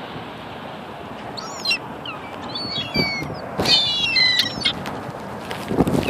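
Gulls calling: scattered squawks, then a louder flurry of several calls about halfway through, over a steady background rush.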